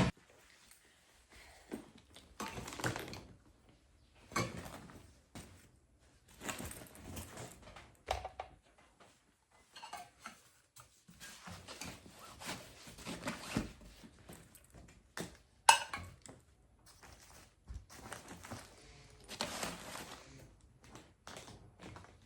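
Scattered soft knocks, clicks and rustles of small items being handled and set down, with one sharper knock about two-thirds of the way through.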